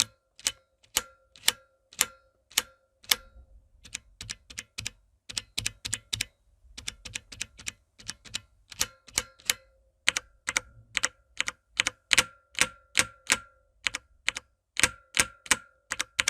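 Keys on a mechanical keyboard with brown tactile switches pressed one after another right at the microphone, about two a second with some quicker runs. Most keystrokes leave a short metallic ring, a clang that sounds like the switch spring.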